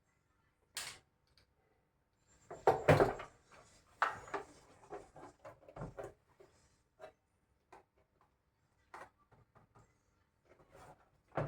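Irregular clicks, knocks and light rattles of hands handling hard parts and tools, with a louder cluster of knocks about three seconds in.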